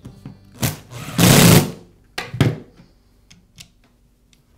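Handling noise from a reassembled Makita angle grinder on a wooden workbench: a knock, a loud half-second burst of noise about a second in, then another knock, followed by a few faint clicks.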